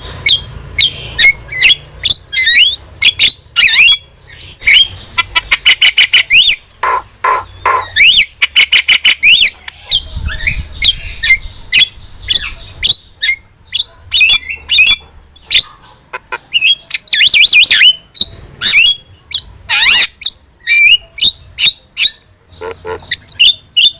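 A jalak (myna) singing in full voice: a fast, varied run of whistled glides, harsh squawks and clicking notes that follow one another almost without pause.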